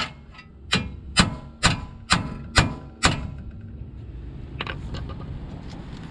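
A hammer beating on metal: a quick run of about seven hard blows, roughly two a second, each ringing briefly. They stop about three seconds in, and a couple of faint taps follow.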